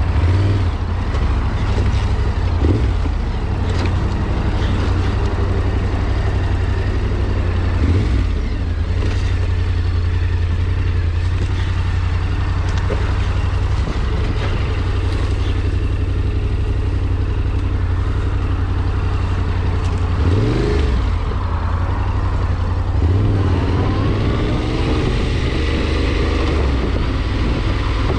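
A vehicle engine running steadily and loudly, with brief changes in pitch as it revs up and down about 20 s in and again from about 23 to 27 s.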